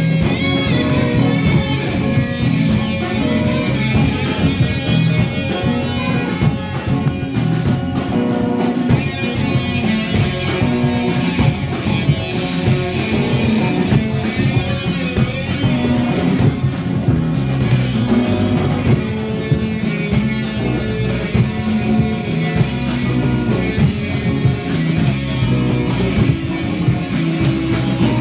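A rock band jamming live: electric guitar, electric bass and drum kit improvising together, tuned to A=432 Hz. The drums keep a busy steady beat under wandering guitar lines, with no break.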